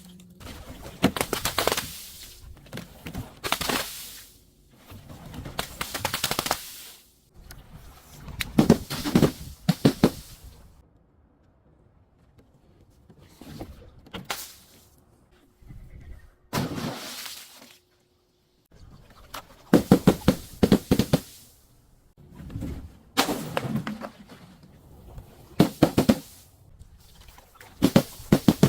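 Objects being crushed and broken in a series of crunching bursts, each made of many quick cracks, with short pauses between them.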